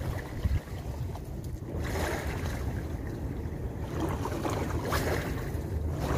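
Wind buffeting the microphone in a steady low rumble, with sea waves washing against the rocks and swelling louder about two seconds in and again near four to five seconds.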